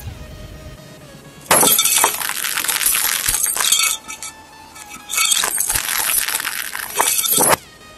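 A brittle, glass-like object crunching and shattering under a car tyre, twice, each time for about two seconds of dense crackling that stops abruptly.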